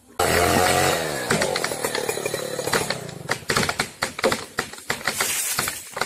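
Chainsaw running loud, starting suddenly at high revs and dropping in pitch over the first second, then running on unevenly with many sharp crackles.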